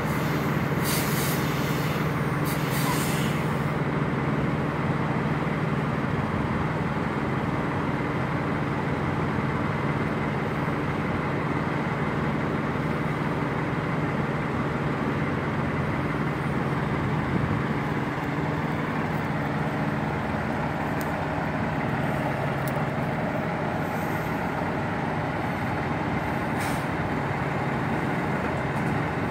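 Semi-truck diesel engine running steadily at low revs as the tractor-trailer reverses slowly, with two short hisses about one and three seconds in.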